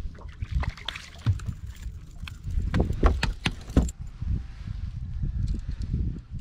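Sharp knocks and rattles of a striped bass being landed and unhooked on a bass boat's deck, loudest about three to four seconds in, over a steady low rumble.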